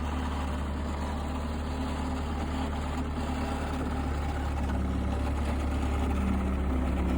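Bobcat skid-steer loader's engine running steadily, growing slightly louder toward the end.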